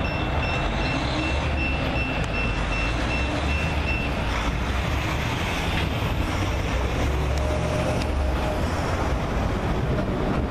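MBTA F40PH diesel locomotive running under load as it pushes a commuter train away around a curve: a steady engine rumble with the noise of the wheels on the rails. A thin, high steady tone is heard for the first few seconds.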